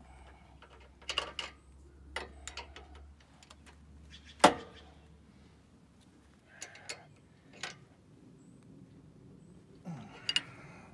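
Steel hand wrenches clinking and clicking on the adjusting bolts of a sawmill's adjustable bed rail, setting an out-of-plumb rail back in line. Scattered short metal clanks, the loudest a single sharp one about four and a half seconds in.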